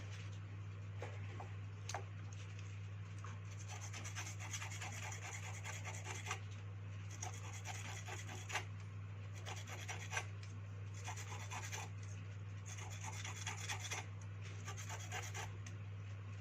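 Irregular scraping and rubbing strokes of a hand tool on a hard surface, with a few sharp clicks, over a steady low electrical hum.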